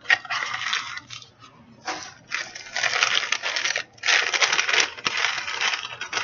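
Wrapping paper rustling and crinkling as a necklace is handled and unwrapped, in three stretches with short pauses between.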